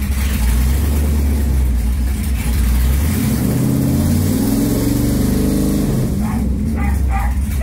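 LS V8 engine swapped into a 1996 Camaro, running, then revved about three seconds in: its pitch rises for a couple of seconds and then eases back down.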